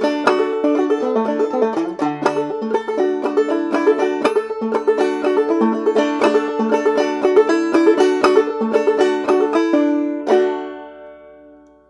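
Five-string banjo played clawhammer style, a brisk run of plucked and brushed notes in a steady old-time rhythm. About ten seconds in it ends on a final struck chord that rings and fades out.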